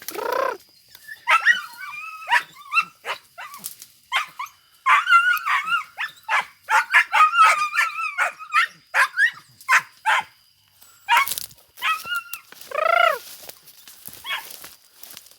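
Young dog baying: quick runs of high yelps and barks, with a drawn-out falling howl at the start and another about 13 s in.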